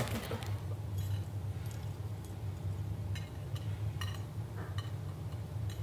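Quiet room hum with a few faint, scattered clicks and clinks.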